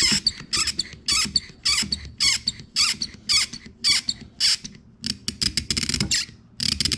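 A hand-held vacuum pump worked in quick repeated squeezes, about three a second, each stroke a short squeaky hiss of air. It is drawing vacuum on a Garrett VNT 17/22 turbo's vane actuator, pulling the diaphragm against its spring so the vane arm can be checked at its stop.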